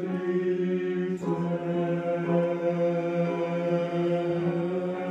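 Male voices singing one long held low note in a chant-like drone, with a short break about a second in before the note is taken up again.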